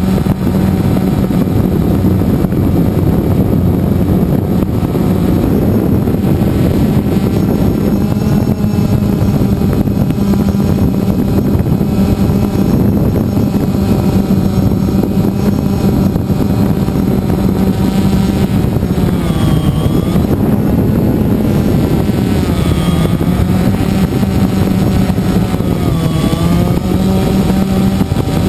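Drone's electric motors and propellers buzzing loud and steady as it climbs, heard from close up on the drone itself. The pitch dips and recovers about three times in the second half as the motors change speed.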